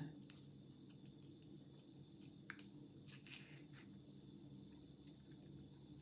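Near silence, with a few faint clicks of small metal parts being handled as an aluminium plug follower is worked into a euro cylinder lock. The clearest click comes about two and a half seconds in.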